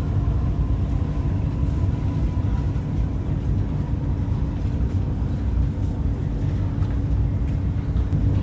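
Steady low rumble and hum inside the cabin of the Whoosh high-speed electric train as it runs along the track, with a faint steady tone above the rumble.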